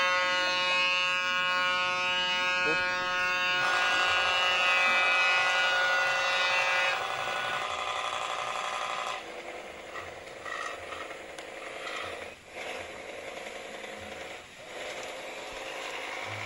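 Pop-pop toy steam boat engine running with a rapid, steady buzzing putter. It drops to a quieter, rougher sound after about nine seconds.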